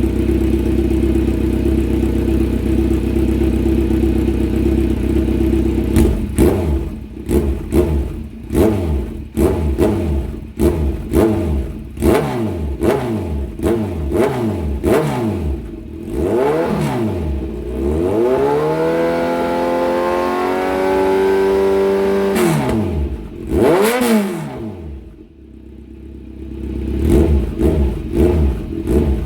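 Kawasaki Z900 SE's inline-four engine through an aftermarket exhaust, idling steadily, then blipped through a quick run of throttle revs about once a second, held at higher revs for a few seconds, dropped back, and blipped again a few more times near the end.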